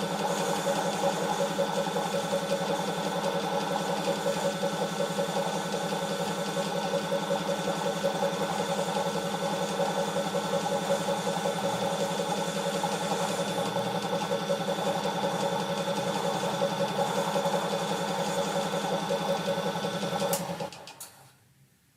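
Electric power-tool motor running at a steady speed. Near the end there is a click, and the motor is switched off and winds down over about a second.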